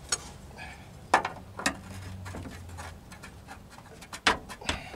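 Metal jail bar clicking and knocking against the bus's sheet-metal window frame and mounting point as it is lifted and fitted into place, with a few sharp knocks and some rubbing in between.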